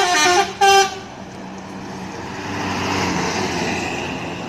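Bus telolet horn: a multi-tone musical air horn ends its tune about half a second in and gives one more short blast just before a second. After that the noise of the vehicle swells and fades.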